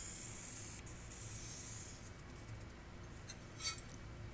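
Faint scratchy hiss of a Sharpie felt-tip marker drawn along paper as it traces an outline, stopping about halfway through. A few faint light ticks follow near the end.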